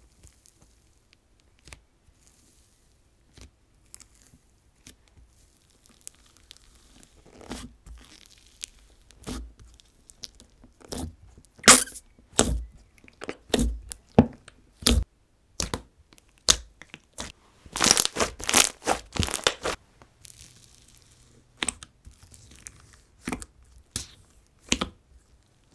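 Thick slime with foam beads and softened clay mixed in, squeezed and poked by hand, giving irregular sticky pops, crackles and crunches. It is sparse at first and busiest in the middle.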